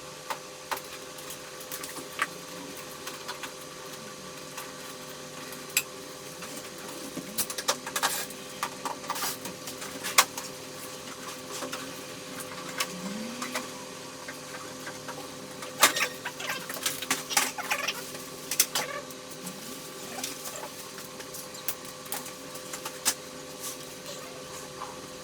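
Scattered light clicks and knocks over a steady electrical hum, busier around 8 to 10 seconds in and again around 16 to 19 seconds in, with a brief rising squeak about 13 seconds in.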